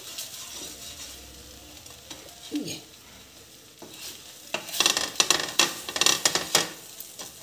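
Wooden spatula scraping and tapping in a frying pan as bread slices are pushed around, with a run of sharp clicks and scrapes past the middle. Faint sizzling from the pan on a low flame underneath.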